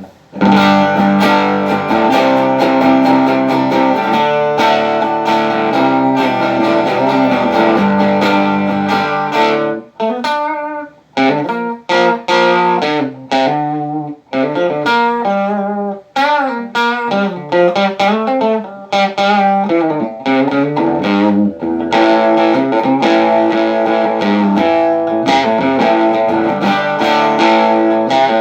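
Electric guitar played through a small Kay 703 tube amp, recently restored with new capacitors, resistors and tubes, as a sound test. It opens with held chords, turns to choppier single notes that waver in pitch around the middle, and ends on held chords again.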